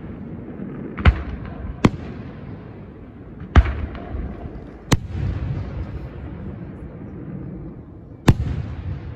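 Fireworks bursting: five sharp bangs at uneven intervals, each followed by a low rolling rumble.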